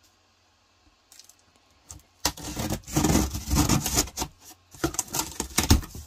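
Scissors cutting through packing tape on a cardboard box and the cardboard flaps being pulled open: a loud, noisy scraping and tearing with many sharp crackles, starting about two seconds in after a faint first scratch.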